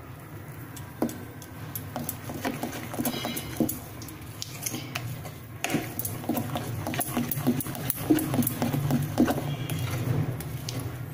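Steel spoon stirring thick besan batter in a glass bowl, clicking and knocking against the glass in a quick irregular rhythm that grows faster and louder about halfway through.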